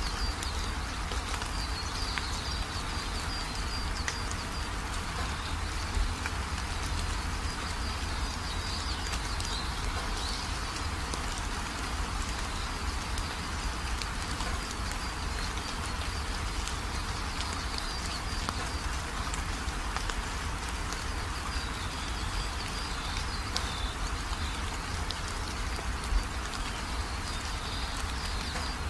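Hens pecking grain off bare dirt: a steady patter of many small quick taps, like light rain, with two slightly louder knocks about six seconds in and near the end. Faint high chirping runs behind it.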